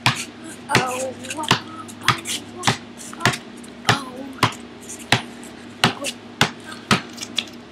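A basketball being dribbled: a steady rhythm of sharp bounces, about three every two seconds.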